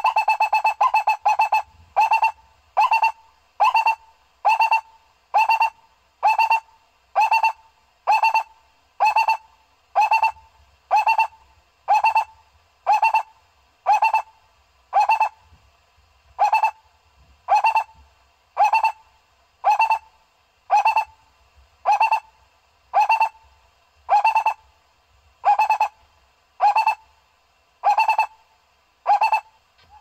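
Barbet call: a quick run of notes in the first second and a half, then a single note repeated steadily about once a second.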